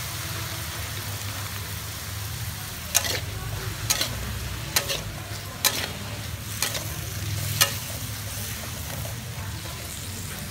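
Beef and carrot slices sizzling in a steel wok with a little water just poured in, then a metal spatula stirring and knocking against the wok six times, about once a second, in the middle.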